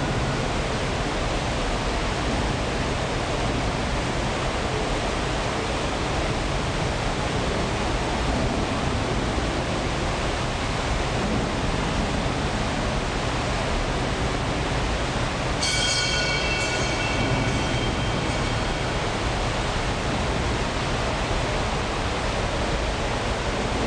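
Large water wheel of the old saltworks' pump machinery turning, with a steady rushing noise of water and running machinery. About sixteen seconds in, a high metallic squeal comes in for about two seconds.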